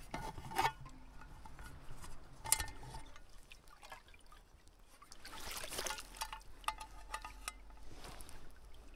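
Water trickling and splashing as a small metal cup is dipped into a shallow stream to scoop water, with a swell of splashing about five seconds in. A few sharp metal clinks from the cup and a mess tin's wire handle.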